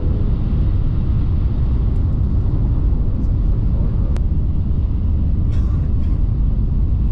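Shinkansen bullet train running at speed: a steady low rumble heard inside the carriage, with a single sharp click about four seconds in.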